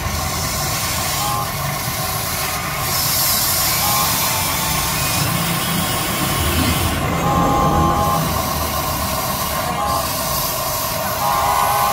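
Huina RC excavator's electric motors and gears whining as the boom, arm and bucket move, with high tones that start and stop as each function is worked, over a steady hiss.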